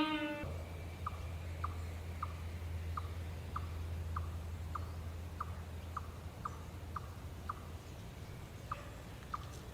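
A sitar music phrase ends about half a second in. Then comes a regular series of short, high chirps, about two a second, from a small animal calling. The chirps pause near the end, then sound twice more, over a low steady hum.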